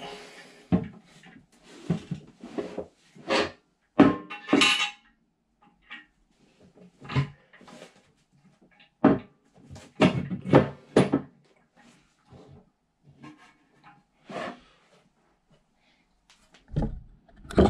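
Irregular clunks, clinks and scrapes of a ceramic close-coupled toilet cistern being handled and lined up onto the pan over its donut washer.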